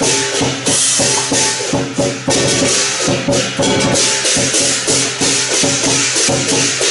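Chinese lion dance percussion: a drum beaten with crashing hand cymbals in a fast, driving rhythm, loud and continuous.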